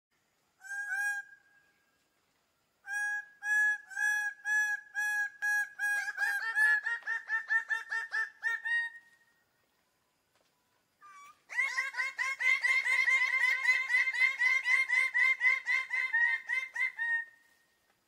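Birds-of-paradise calling with loud, harsh, repeated notes. A single call comes first. A series starting about three seconds in speeds up into a rapid run, and a second fast run follows from about eleven seconds until near the end.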